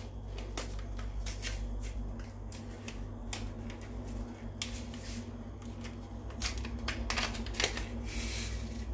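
A small paper sachet of vanilla sugar being handled and opened: scattered soft clicks and rustles, irregular rather than rhythmic, over a faint steady low hum.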